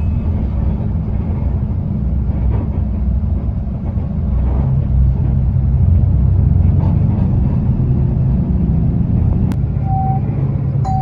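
Steady engine and road rumble of a TransJakarta city bus heard from inside the cabin while it drives between stops, growing a little louder about halfway through. A short electronic chime tone sounds near the end.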